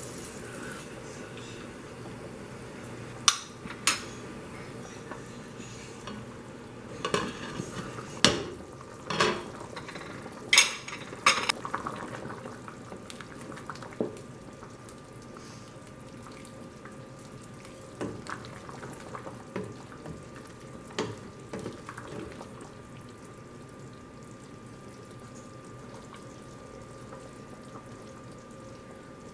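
A spoon stirring a thick pea and meat stew in a stainless steel pot, with irregular sharp clicks and knocks of the spoon against the pot, busiest in the first half and sparser later, over a steady low hiss.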